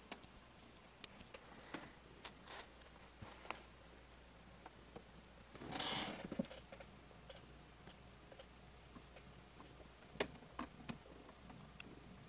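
Quiet room with scattered faint clicks and taps, a brief rustle about six seconds in, and a sharp click a few seconds later.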